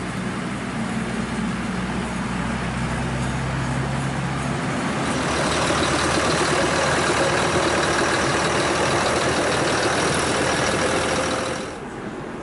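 Engine of a narrow-gauge heritage rail motor car running: a steady low idling hum that grows louder and noisier about five seconds in, then cuts off suddenly near the end.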